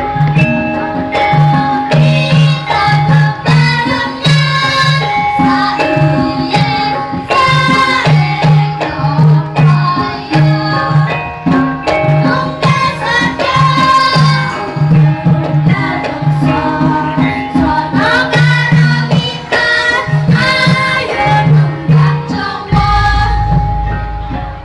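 Javanese gamelan ensemble playing: bronze metallophones ring held notes over an even pulse of low strokes, with hand-drum (kendang) patterns and a gliding melodic line above.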